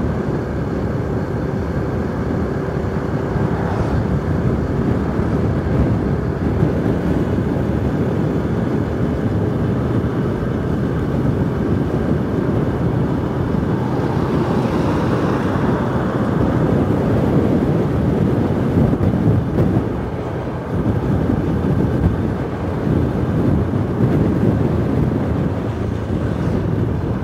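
Yamaha YBR 125 motorcycle's single-cylinder four-stroke engine running steadily at cruising speed, mixed with wind and road noise on a handlebar-mounted camera.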